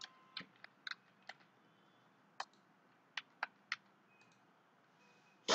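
Computer keyboard keystrokes as a login ID and password are typed: a quick run of taps, then a few spaced single clicks. A brief, louder burst of noise comes at the very end.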